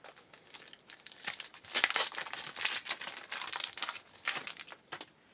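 Crinkling and rustling of a trading-card pack wrapper with cards being handled: irregular crackles, densest about two seconds in and again about three to four seconds in.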